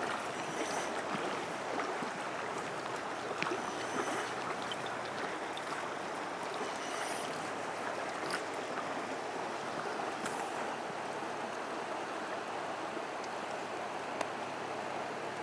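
River current rushing over a riffle: a steady wash of flowing water, with a few faint clicks.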